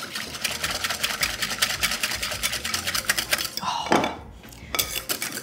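Wire balloon whisk beating cream by hand in a ceramic bowl: a fast, steady clatter of wire against the bowl. It breaks off briefly about four seconds in, then starts again.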